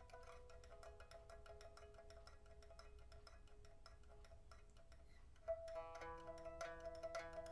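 A 1992 Man Ruixing pipa of old Burmese rosewood, with a steel first string and copper second to fourth strings, played softly with fast, even plucking (tremolo) that holds sustained notes. About five and a half seconds in, a sharp plucked attack brings in new, lower notes, and the tremolo goes on louder. It is being test-played after its soundboard and frets were replaced.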